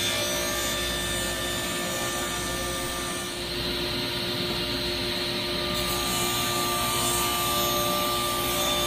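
Table saw running at a steady pitch and ripping a plywood board. The blade starts cutting about three seconds in, adding a higher-pitched cutting noise over the motor's steady tone.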